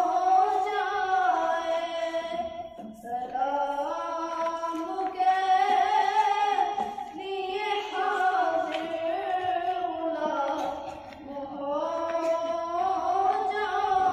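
A boy singing a naat, an Urdu devotional song in praise of the Prophet, unaccompanied into a handheld microphone. He sings long, drawn-out, ornamented phrases with brief pauses for breath.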